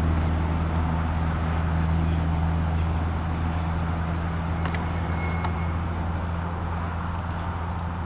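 Cabin-cruiser motorboat's engine running at speed, a steady low drone that slowly fades as the boat moves away.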